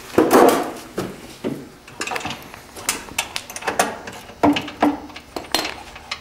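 Metal clinks and clanks of a socket ratchet, wrench and bumper bolts being handled and set down on a concrete floor as the bumper bolts come off, with a burst of rustling at the start.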